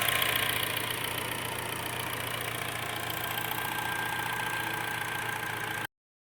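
2009 Hyundai Sonata engine idling steadily under the open hood, with an even, smooth idle after throttle-body work meant to cure a rough idle. The sound cuts off suddenly near the end.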